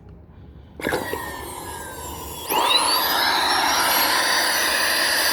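An 8.5 amp vacuum cleaner motor with its intake taped shut, so it runs without cooling air, starting up. There is a sharp click about a second in, then about two and a half seconds in the motor comes on and its whine sweeps quickly up in pitch and settles into a loud, steady, high-pitched running.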